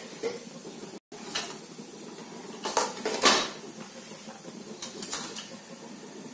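Clinks and knocks of kitchen utensils and containers, a cluster of them about three seconds in and a few more near five seconds, over a faint steady sizzle of whole spices and fennel seeds frying in hot oil in a kadai.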